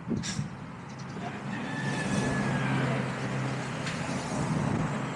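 Street traffic: a vehicle engine running steadily as cars and motorbikes pass, louder from about two seconds in, with one sharp click just after the start.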